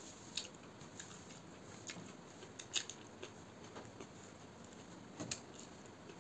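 Close-miked eating by hand: soft chewing and mouth sounds with scattered sharp clicks, the loudest nearly three seconds in, as rice is mixed and scooped from a steel plate.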